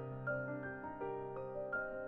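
Background music: a keyboard, piano-like in tone, playing a melody of held notes that change one after another.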